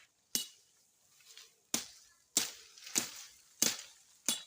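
A blade chopping at tree branches: six sharp strikes, the last four coming regularly about two-thirds of a second apart, as side branches are hacked off young trees in pruning.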